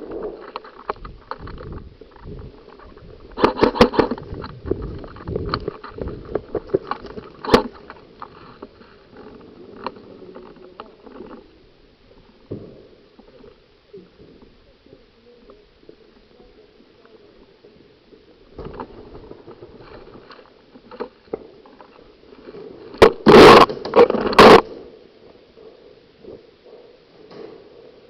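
Rustling, rubbing and knocking noise of movement close to a worn camera's microphone, with scattered sharp clicks. Near the end come two loud bursts of noise close together, the loudest sounds here.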